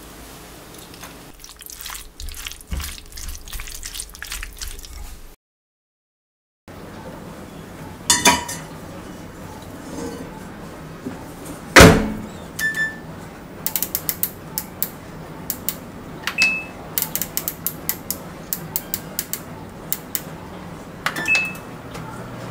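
A wooden spatula stirring and scraping sticky sauced dried filefish in a stainless frying pan. Then a built-in oven being loaded and set: a clank about 8 seconds in, the oven door shutting with a loud knock near the middle, then a run of quick clicks and a few short electronic beeps as the temperature is set.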